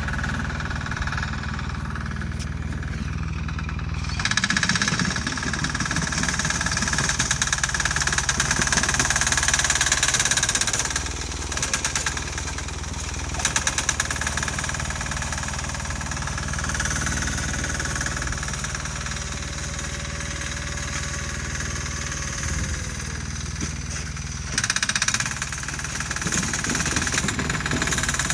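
Sears garden tractor's 6 hp single-cylinder air-cooled diesel engine running steadily, growing louder for several seconds from about four seconds in, with two short louder spells later on.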